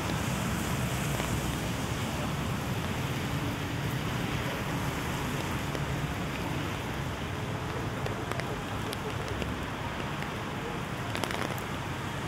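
Steady rain falling on a city street, an even hiss of rainfall with scattered light ticks of drops in the later part.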